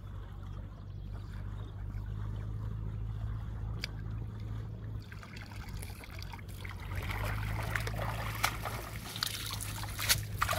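Water trickling and splashing, with drips and splashes growing busier from about halfway through, over a steady low rumble.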